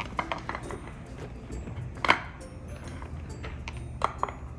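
Plastic toy train track pieces being handled and fitted together: a few light clicks and knocks, with a sharper knock about two seconds in and another near the end.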